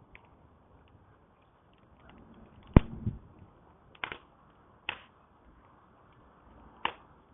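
Campfire crackling: burning wood snapping in sharp, irregular pops over faint ticking. The loudest pop comes about three seconds in, and four more stand out after it.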